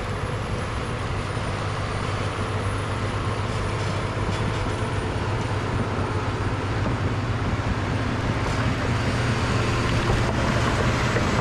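Cat D6T bulldozer's diesel engine running steadily as the dozer works dirt, growing a little louder toward the end.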